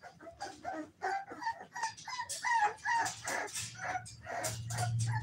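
A litter of young American bully puppies whining and yelping: many short, high-pitched cries that overlap, several a second.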